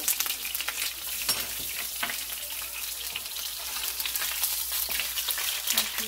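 Black sea bream fillet frying in hot oil in a pan, the oil sizzling steadily with many quick crackles and spits.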